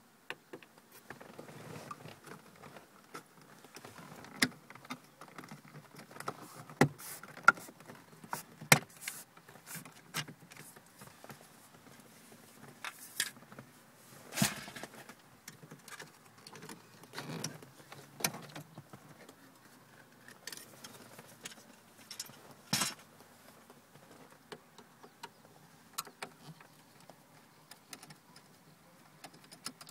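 Hands working on BMW E46 plastic dashboard trim: scattered clicks, knocks and rattles of trim pieces and their clips being pried loose and handled, with a few sharper knocks.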